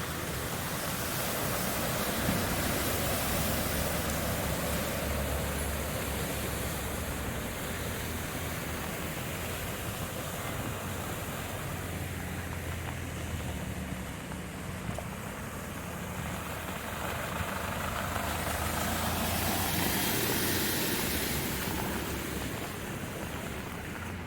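Motor vehicles running past, a low engine hum under a steady rushing noise, swelling louder twice as vehicles go by.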